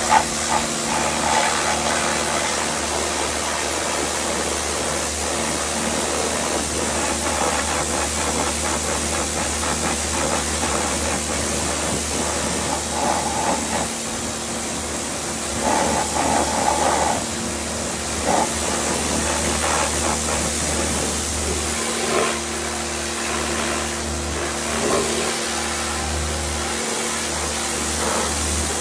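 Pressure washer running, its water jet hissing steadily against a motorcycle over a steady low hum from the machine.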